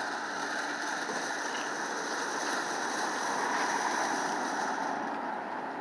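Sparkling ground firework fountain spraying sparks with a steady hiss, its upper edge dying down near the end.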